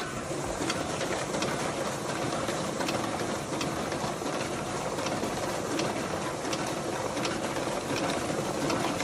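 High-speed ballot scanner of an ImageCast Central count system feeding a batch of paper ballots, running steadily with a regular click as each sheet goes through.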